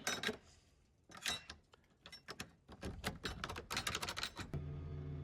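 A run of irregular clicks and knocks, quickening near the end, that cuts off about four and a half seconds in and gives way to a steady low hum.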